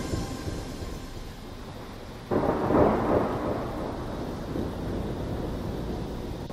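Low, steady rumbling road and engine noise inside a moving car's cabin, picked up on a phone microphone; it comes in suddenly about two seconds in, after the fading tail of a music chord.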